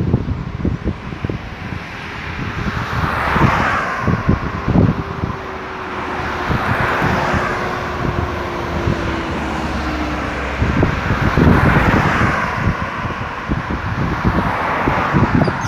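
Highway traffic: cars passing one after another, each swelling up and fading, about four in all, with one drawn-out falling tone from a passing vehicle in the first half. Wind buffets the microphone throughout.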